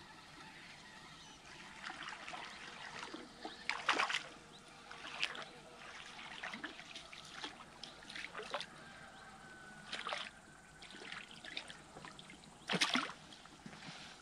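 A hooked bream splashing at the water's surface as it is reeled in, in a run of short, irregular splashes; the loudest come about four seconds in and again near the end.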